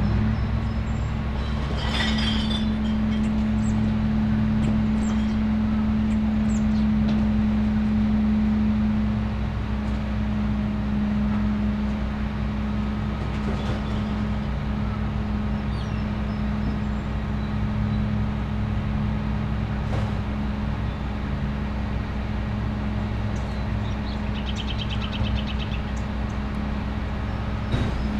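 Garbage truck engine running at a steady drone, with a clatter about two seconds in, scattered knocks, and a short, fast rattle near the end.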